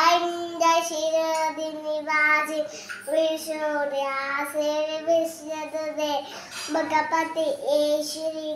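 A young girl chanting slokas (devotional verses) in a high, sing-song voice. She holds steady notes in melodic phrases and pauses briefly between verses.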